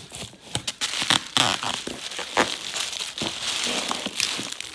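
Packing material crinkling and rustling as it is handled and pulled out of a shipping box, a dense run of irregular crackles.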